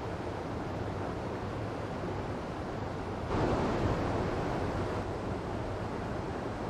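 Water from a small waterfall rushing and splashing steadily, with a louder surge of splashing about halfway through.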